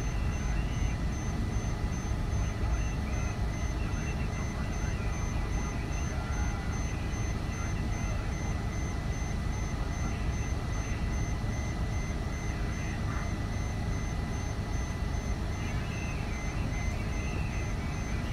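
Steady low rumble of a parked airliner and ground equipment at the gate, with a constant high-pitched whine running over it, heard muffled through the terminal window glass.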